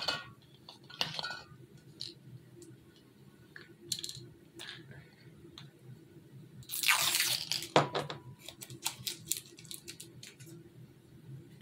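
Craft materials being handled on a worktable: scattered small clicks and taps, with one rustle lasting about a second roughly seven seconds in.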